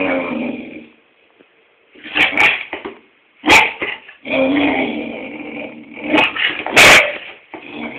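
Springer spaniel barking: a few sharp single barks, the loudest near the end, mixed with longer drawn-out whining vocalisations.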